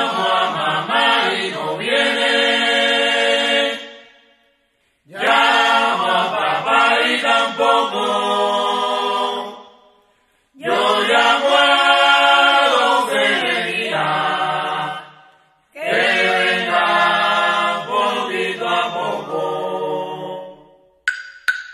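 Unaccompanied group of voices singing the opening of a Cuban rumba in four phrases, with short silent breaths between them. Sharp percussion clicks, like a wood block, come in just before the end.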